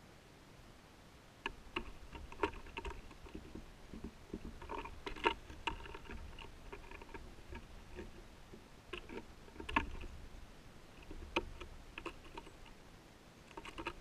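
Irregular light taps and clicks, a dozen or so scattered unevenly and some in quick little clusters, over a faint low rumble.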